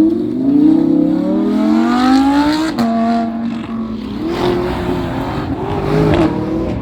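A car engine revving up, its pitch climbing for almost three seconds, then dropping suddenly to a lower steady note before rising and falling again at lower revs.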